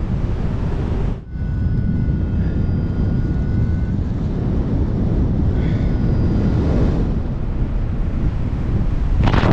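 Rushing in-flight wind on a paraglider's harness-mounted camera microphone, a heavy steady low rumble during a SAT manoeuvre. A faint steady tone sounds for a few seconds about a second in, and again briefly later.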